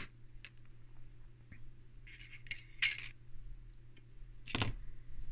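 Small metal and plastic parts of a panel meter being handled as it is opened up: a few light clinks and scrapes about two to three seconds in, then a sharper knock near the end. A faint steady low hum runs underneath.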